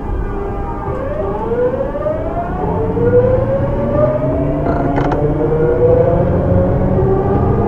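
Early Hitachi GTO-VVVF inverter of a Tokyu 9000 series train whining as the train accelerates, heard from inside the car: several stacked tones glide steadily upward from about a second in, over a running rumble. A brief click comes about five seconds in.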